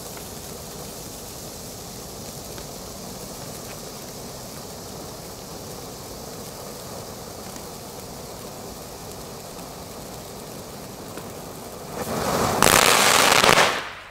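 Red Geysir Kaliber C firework fountain burning with a steady hiss. About twelve seconds in it bursts into a much louder rush for roughly two seconds, its final charge throwing out a shower of sparks, then it cuts off abruptly.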